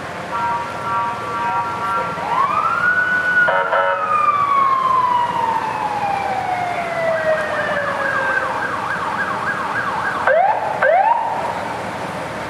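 Emergency-vehicle sirens. A short steady chord of tones is followed by a siren that winds up quickly and slowly falls in pitch over several seconds. Near the end comes a fast warbling yelp and two quick rising whoops.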